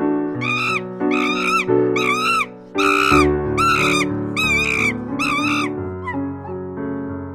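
Background music with sustained notes, over which an animal gives a run of about seven short, high calls, each rising and falling in pitch, about twice a second.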